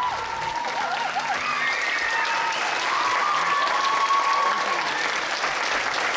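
Audience applauding, with some cheering voices over the clapping.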